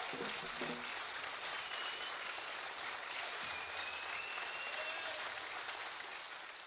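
Concert audience applauding and cheering, with a few high whistles cutting through, the applause fading away near the end.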